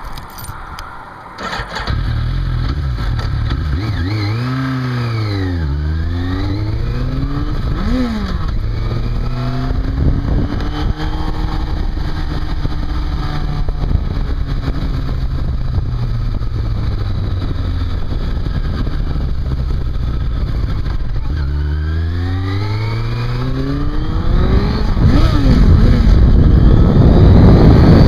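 Yamaha YZF1000R Thunderace inline-four accelerating hard, its pitch climbing and dropping at each upshift through the gears. It then holds a steady high-speed run under heavy wind rush. Another series of upshifts comes about three-quarters of the way in, and the wind and engine noise grow loudest near the end.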